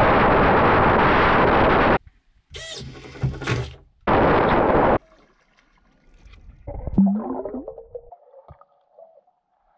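Steady rushing noise of an RC fishing boat running on the water, with a faint steady whine in it, that cuts off suddenly about two seconds in. Then comes a short mechanical whirring with clicks, from the boat's homemade anchor winch and its DC gear motor and belt drive, followed by another second of the running noise. Near the end the anchor plunges underwater with a gush of bubbling that fades out.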